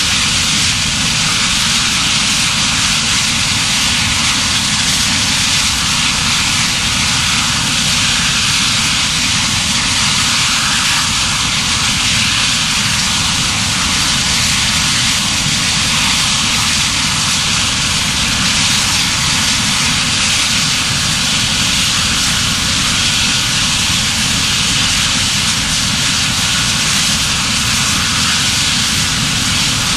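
A medical helicopter's turbine engine and rotor running, a loud, steady rushing whine with no let-up.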